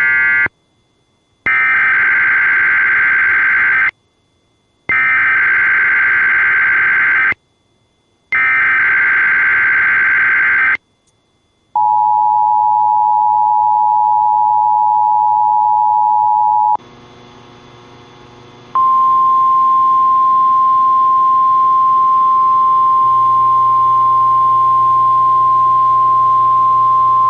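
NOAA Weather Radio Emergency Alert System weekly test tones: the end of one burst, then three bursts of screechy SAME digital header data a couple of seconds each, separated by short silences. Then a two-note attention tone for about five seconds, and after a brief pause a steady 1050 Hz weather-radio warning alarm tone.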